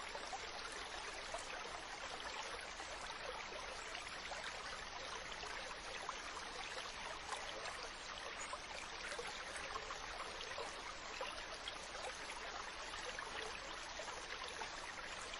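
A small stream running steadily over stones: a constant babbling rush of water with fine splashes throughout.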